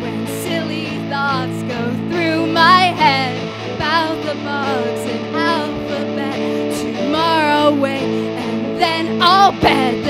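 A woman singing a slow melody with vibrato over two electric guitars playing sustained chords, in a live band performance.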